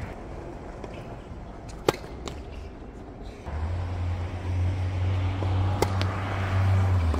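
Sharp pops of a tennis ball being struck or bouncing on a hard court, the loudest about two seconds in and another near the end. A steady low rumble with hiss comes up about halfway through.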